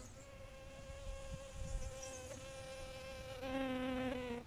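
A flying insect buzzing close to the microphone on one steady pitch, growing louder near the end and then cutting off suddenly.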